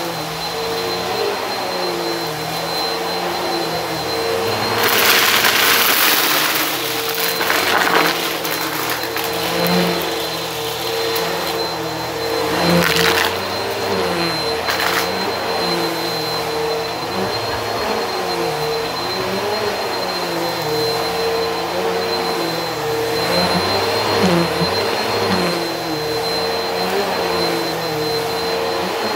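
Bissell Helix upright vacuum running steadily with a high motor whine as it is pushed over carpet, sucking up a pile of small clips: a loud rattling stretch about five seconds in and short rattles around thirteen and fifteen seconds.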